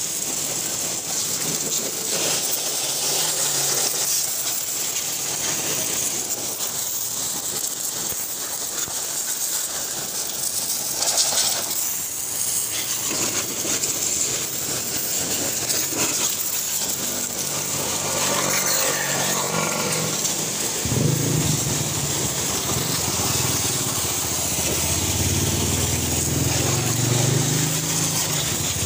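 High-pressure water jet from a coin-operated pressure washer hissing steadily as it sprays a motor scooter, the spray spattering on the bodywork and concrete. A low hum comes in about two-thirds of the way through.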